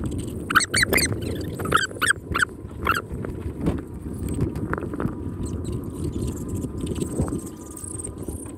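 Steady low rumble of wind and water along a rocky shore, with a run of short, high animal calls, about two a second, over the first three seconds and a few faint taps later on.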